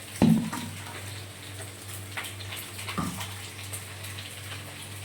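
Potato pieces sizzling and crackling as they fry in hot oil, with two sharp knocks, about a quarter second in and about three seconds in, the first being the loudest.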